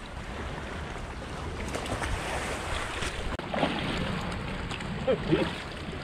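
Surf washing over a rocky shore, with wind buffeting the microphone.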